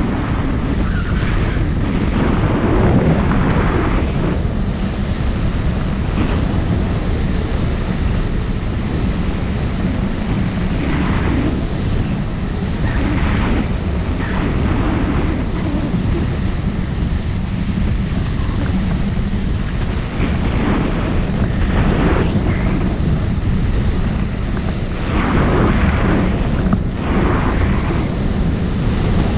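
Wind noise from air rushing over a hang glider's wing-mounted camera microphone in flight: a loud, steady rush that swells in short gusts several times.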